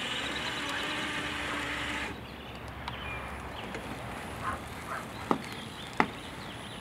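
Yarbo robotic yard machine with its S1 snow-blower module running, a steady motor whir that stops abruptly about two seconds in. A few short sharp sounds follow, the loudest two in the second half.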